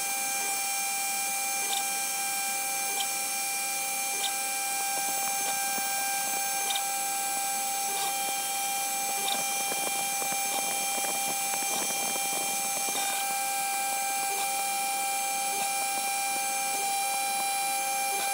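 400-watt brushless spindle on a MillRight Carve King hobby CNC router drilling holes in a copper-clad PCB blank, sped up four times: a steady high whine with a short tick about every second and a quarter. A rougher rattling stretch lasts about three seconds past the middle.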